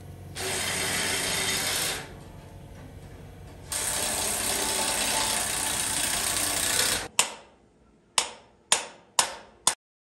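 Workshop tools at work on a steel vehicle chassis: a steady mechanical noise in two stretches of a couple of seconds each, then five sharp knocks, each ringing briefly, the last four about half a second apart.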